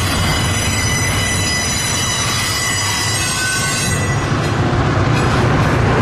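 Train rolling past with a steady low rumble and a high, steady wheel squeal that dies away about four seconds in.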